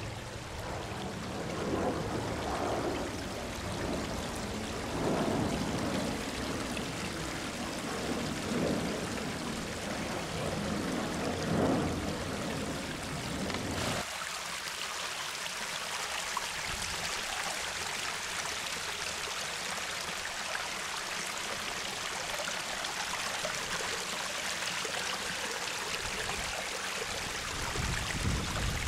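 Pumped water running down a newly built stone cascade, splashing and trickling over rocks and cobbles into the pond, on its first test run. The flow is uneven with small surges at first; about halfway it changes abruptly to a thinner, steadier, higher hiss.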